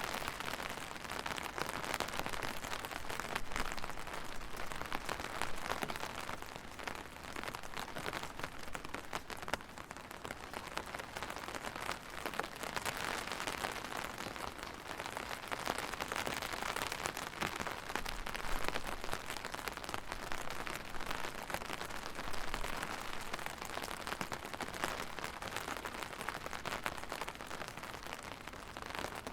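Steady rain falling on a surface, a dense patter of drops with a hiss that swells and eases slightly.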